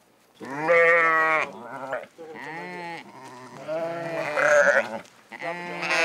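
A mixed flock of goats and sheep bleating: about five calls in quick succession from about half a second in, some overlapping, each with a wavering pitch.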